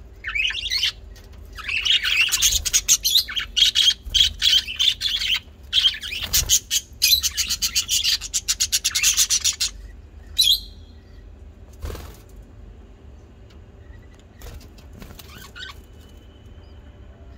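Bird chirping in fast, dense runs of high chirps for about ten seconds, then only a few faint calls.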